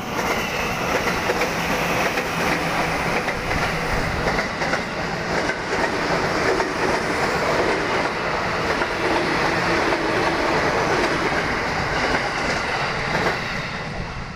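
JR 205 series electric commuter train passing close by: a steady rush of wheel and running noise with repeated clickety-clack as the wheels cross rail joints.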